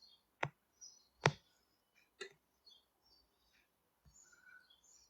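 Three short, sharp clicks about a second apart, the second the loudest, with faint high chirps scattered between them.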